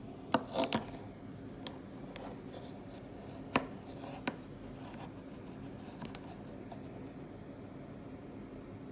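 Light knocks and clicks of a plastic sports watch (Suunto Spartan Trainer Wrist HR) being handled and turned over on a wooden table: a cluster in the first second, one sharp knock about three and a half seconds in, and a few fainter ones up to about six seconds, over a steady low hum.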